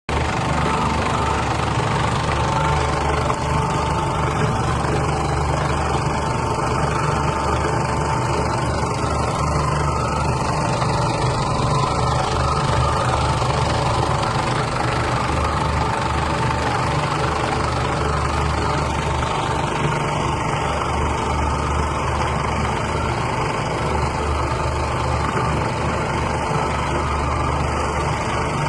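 Electric meat grinder for bakso running steadily, a continuous motor hum with a steady whine.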